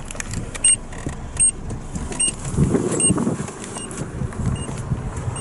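A car's dashboard tick-beep repeating steadily about every three-quarters of a second, over the low running of the engine, with a swell of low rumble around the middle.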